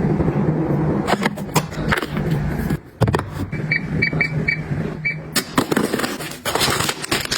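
Five short, high electronic beeps in quick succession, like an appliance's control-panel buttons being pressed, over a steady low hum with scattered clicks and knocks; the hum stops abruptly near the end.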